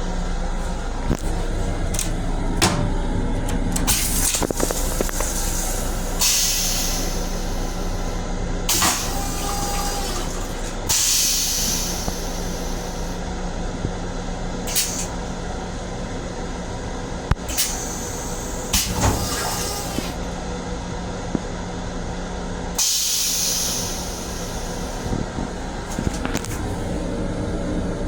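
Steady hum inside an LIRR M7 electric railcar's restroom, overlaid by several short hissing bursts, each lasting about a second, and a few sharp clicks.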